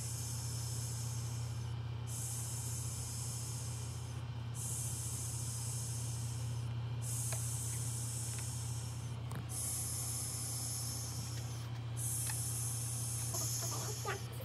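Steady white-noise hiss, of the kind played to soothe newborns during posing, dropping out for a moment about every two and a half seconds, over a low steady hum.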